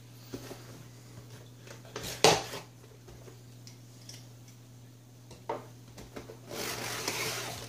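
Cardboard mailer box handled on a wooden desk: a few sharp knocks, the loudest about two seconds in, then a rustling scrape of cardboard near the end as the flap lid is pried open, over a faint steady hum.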